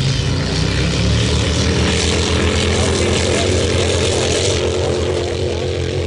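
An engine running at a steady pitch, giving a low drone, over a hiss that swells in the middle and eases off near the end.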